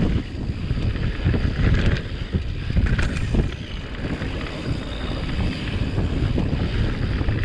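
Mountain bike riding down a dirt singletrack: a steady rumble of tyres on dirt with frequent small knocks and rattles as the bike goes over bumps, all under wind buffeting the microphone.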